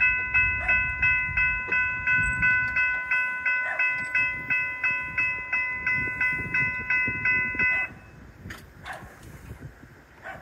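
Electronic railroad warning bell ringing in even pulses about three times a second, then stopping abruptly about eight seconds in. A low rumble runs beneath it during the first three seconds.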